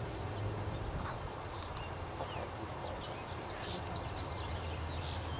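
Faint outdoor background with scattered short, high bird chirps over a low steady hum.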